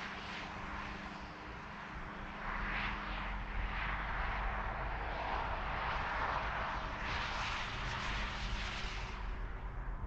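Interstate highway traffic: a continuous rush of tyre and engine noise over a low rumble, swelling as vehicles pass about two and a half seconds in and again around seven seconds, then easing just before the end.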